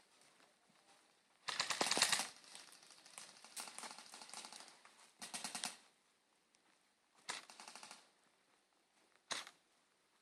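Airsoft rifles firing full-auto bursts of rapid clicking shots: a loud burst about a second and a half in, fainter rapid fire after it, two more short bursts, and one brief shot near the end.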